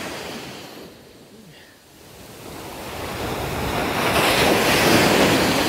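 Surf breaking on a sandy beach: a steady wash of waves that dips briefly, then swells up over the last few seconds as a wave breaks and rushes up the sand.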